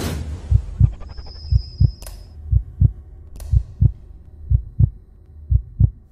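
Logo-intro sound effects: a deep heartbeat thump, beating in pairs about once a second. It opens on a fading whoosh, and a thin high whine and two sharp clicks come in over the beat.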